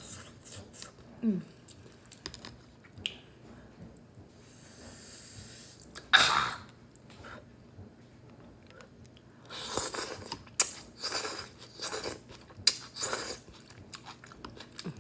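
Close-miked mouth sounds of a person eating udon noodles: wet chewing and smacking, with a loud slurp about six seconds in and a run of slurps and chews from about ten seconds in.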